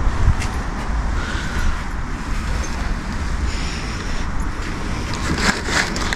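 Car driving, heard from inside the cabin: a steady low road and engine rumble.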